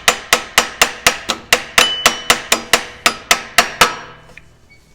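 A hammer tapping a go-kart wheel further onto its axle shaft: a rapid, even run of sharp metallic taps, about four to five a second, that stops about four seconds in.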